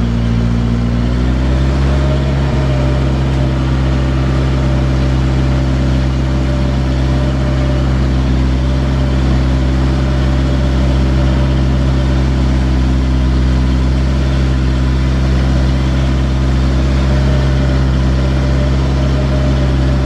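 JCB backhoe loader's diesel engine running loud and steady. Its pitch rises over the first second or two as it is revved up, then holds even.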